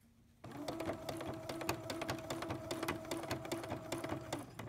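Electric sewing machine doing free-motion embroidery stitching at a steady speed: the needle makes rapid even strokes over a steady motor hum. It starts about half a second in and stops just before the end.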